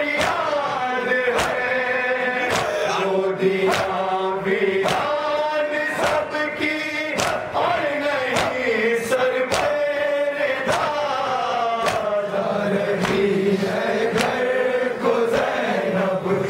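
Men's voices chanting a Shia nauha lament in unison, the melody moving in long phrases. Sharp hand slaps on chests (matam) in a steady rhythm, about one a second, keep the beat.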